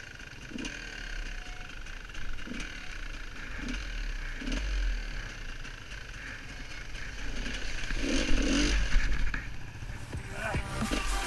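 GasGas enduro motorcycle's engine running and revving as the bike rides down into a shallow stream and through it, with a louder burst of engine and water noise about eight seconds in.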